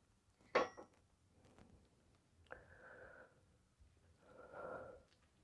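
A single sharp click about half a second in as the heavy crankshaft is settled into the Pontiac V8 block's main bearings, then faint breathing from the effort of lifting it.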